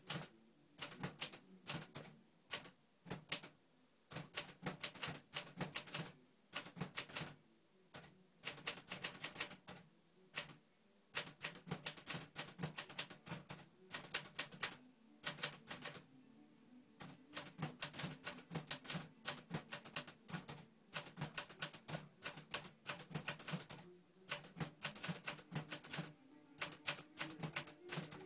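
Hangul (Korean) typewriter being typed on: quick runs of sharp key strikes, several a second, broken by short pauses between words.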